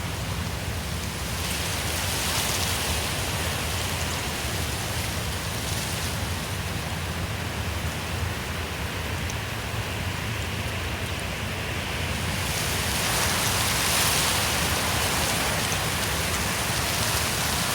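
Wind blowing through forest trees, a steady rushing of leaves and branches that swells and eases, rising into a stronger gust about 13 seconds in.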